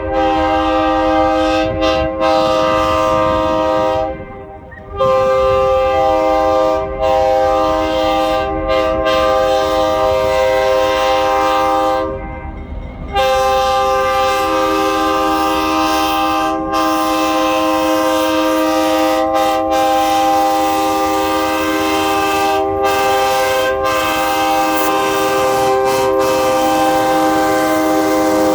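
Locomotive's multi-chime air horn sounding a string of long, sustained blasts, several notes held together as a chord. There are a few brief breaks and two longer pauses, about four and twelve seconds in. A low rumble runs underneath.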